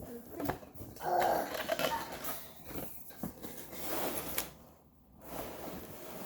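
Cardboard and plastic packaging of a science kit being handled and opened: irregular rustling and crinkling with a few light knocks.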